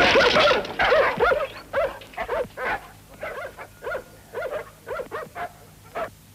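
German shepherd dogs barking in a quick series of short barks, loud and overlapping at first, then spaced out and fading.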